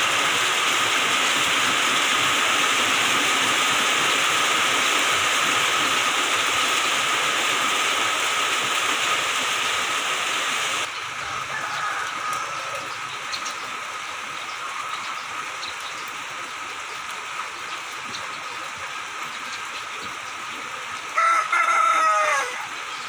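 Heavy rain falling in a steady hiss, dropping abruptly to lighter rain about halfway through. Near the end a rooster crows loudly.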